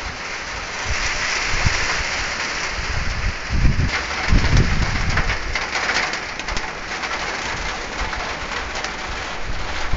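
Rain falling steadily with gusts of wind buffeting the microphone, strongest around the middle, and a dove cooing over the rain.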